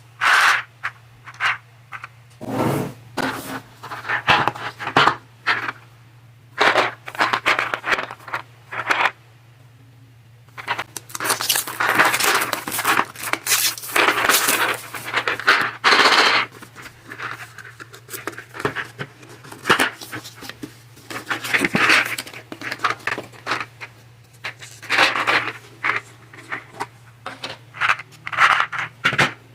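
Unboxing handling sounds: packaging scraped, torn open and crinkled, with short sharp clicks and clinks of small hard plastic parts, the mechanical keyboard switches, being handled in fits and starts, and a longer run of tearing and rustling about halfway through.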